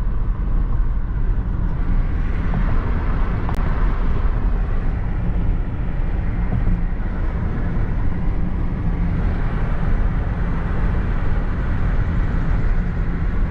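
Steady road and engine noise from inside a diesel pickup truck's cab while driving: a constant low rumble with road hiss.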